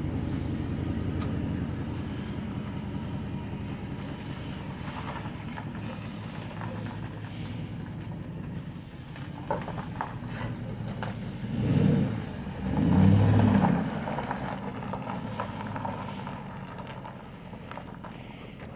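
Chrysler 300C's stock 5.7-litre HEMI V8 idling steadily through the factory exhaust, blipped twice near the middle: two short revs that rise and fall back to idle.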